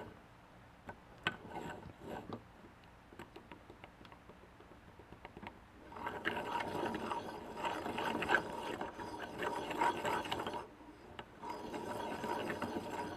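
Ratchet-like mechanical clicking and rattling: a few scattered clicks, then a dense clatter for about four seconds, a short break, and another spell near the end.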